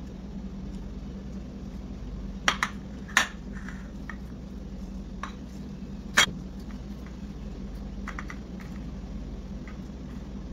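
Ceramic plate of frozen strawberries handled on a stone countertop: a few sharp clinks as the plate is set down and the frozen berries knock against it, the loudest about six seconds in, over a steady low hum.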